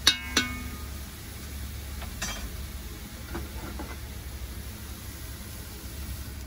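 A metal ladle knocks twice against the rim of a metal cooking pot, ringing briefly. The pot of chicken stew then simmers and hisses steadily over a wood fire, with a few faint knocks.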